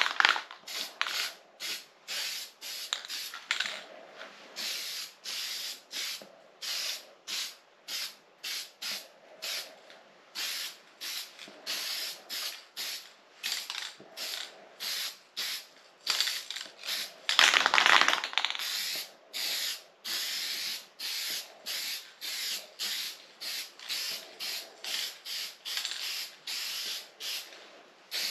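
Aerosol spray can of flat black paint hissing in short bursts, about two a second, with one longer burst a little past the middle, as a light first coat goes onto bare steel.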